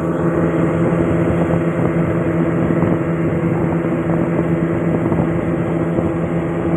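Engine running steadily at a constant speed, a continuous drone with an unchanging pitch.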